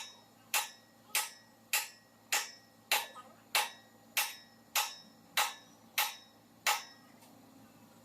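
Hammer blows on metal: about a dozen sharp, evenly paced strikes, roughly one and a half a second, each with a short ring. They stop about a second before the end.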